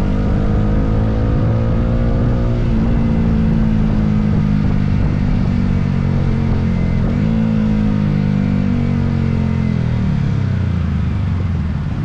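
Yamaha R15M's 155 cc single-cylinder engine under way, its note climbing slowly and dropping sharply twice as it shifts up through the gears, then falling away as it slows near the end.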